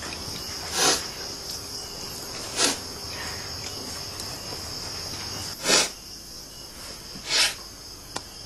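Crickets chirring steadily, a continuous high drone, with four short rushes of noise rising above it at uneven intervals.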